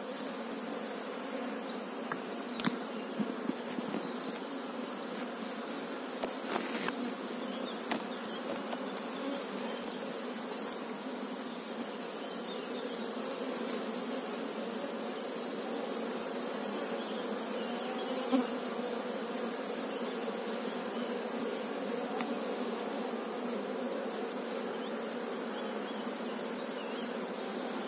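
Steady hum of a honeybee colony in an opened hive, with a few sharp knocks from the wooden frames being pried and lifted, the loudest one about two-thirds of the way through.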